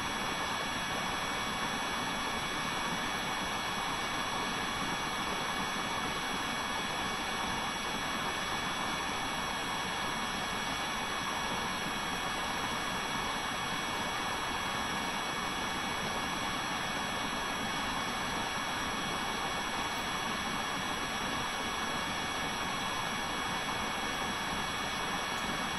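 Steady room noise: an even hiss with a few faint, steady high-pitched whines, unchanging throughout.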